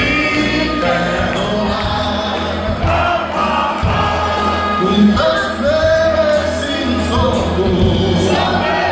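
Music with singing voices over a steady bass.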